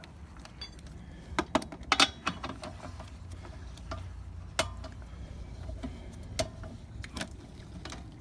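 Metal clicks and clinks at uneven intervals as lug nuts are spun off the wheel studs by hand and handled, over a steady low rumble.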